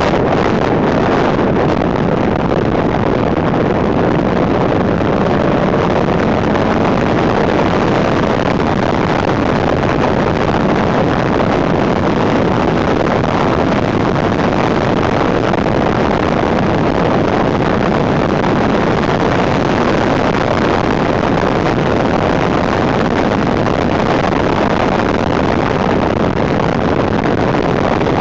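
Loud, steady wind noise on a handlebar-mounted camera's microphone as a 1991 Suzuki GSX750F Katana motorcycle rides along at road speed, the bike's running engine mixed in beneath the wind.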